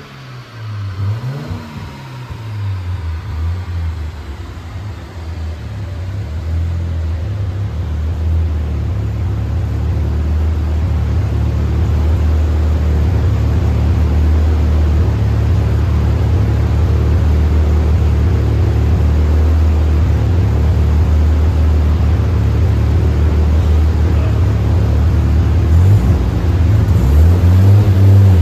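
Mazda RX-7's rotary engine running on a chassis dyno: revving up and down at first, then a steady low drone that grows louder over about ten seconds and holds, before revving up and down again near the end.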